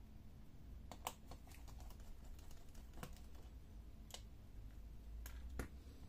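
Scattered light clicks and taps, about half a dozen, from a small precision screwdriver and tiny screws being handled while the screws holding a laptop's cooling fan are removed.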